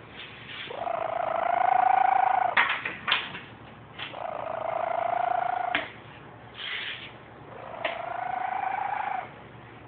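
A domestic cat snoring in its sleep, three slow breaths about three and a half seconds apart, each carrying a whistling tone. There are a few short clicks between the breaths.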